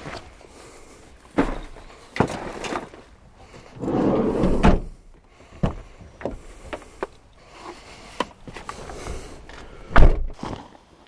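Hollow knocks and thuds in a small rowing boat, irregular, with a longer rough rushing-scraping stretch about four seconds in and the loudest knock about ten seconds in.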